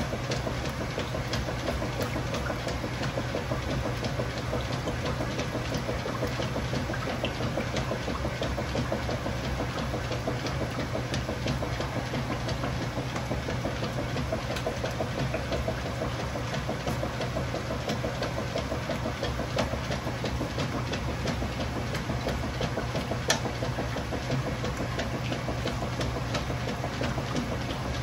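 Kenmore Ultra Fabric Care top-load washing machine running through its cycle: a steady motor hum with hiss and scattered small clicks.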